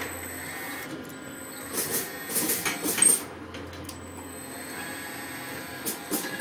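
Electric motors and gearing of a large radio-controlled model mining loader whirring and clattering in short spells as it is driven, with a sharp short clack about three seconds in.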